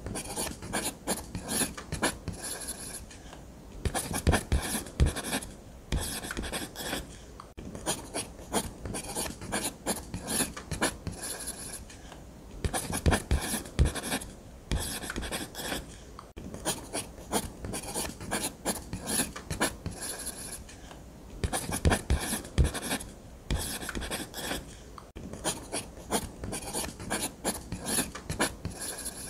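Blue ballpoint pen scratching across paper in many quick short strokes, pausing briefly every few seconds.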